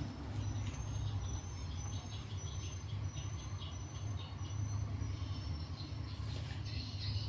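Background ambience: a steady low hum under a run of short, high-pitched chirps, roughly two to three a second, that stops near the end.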